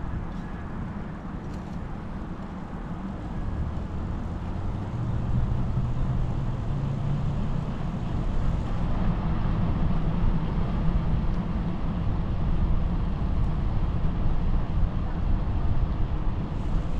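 Wind on the microphone and tyre rumble of a bicycle riding along an asphalt path: a steady low noise that grows louder about four seconds in.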